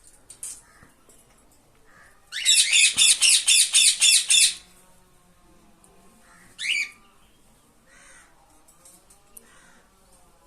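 Cockatiel squawking: a rapid string of about ten loud, harsh screeches over a couple of seconds, then one shorter call a couple of seconds later.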